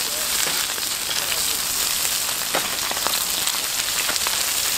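Pork offal sizzling on a hot grill: a steady hiss with scattered pops.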